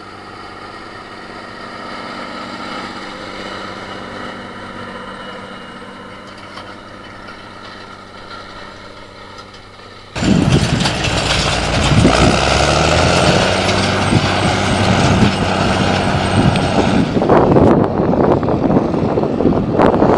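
Rába 245 articulated tractor's six-cylinder diesel engine working under load while pulling a Farmet K600 seedbed cultivator. For about the first ten seconds it is a steady, moderate drone. After a sudden cut about halfway it becomes much louder and closer, a dense rumbling that continues to the end.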